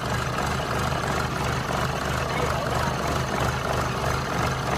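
Engine of a tracked farm machine running steadily with an even low beat.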